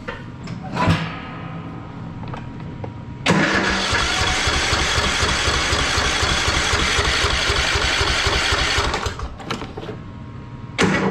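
Troy-Bilt riding lawn mower engine cranked over by its starter for about six seconds, starting about three seconds in, with fast regular pulses. It does not catch.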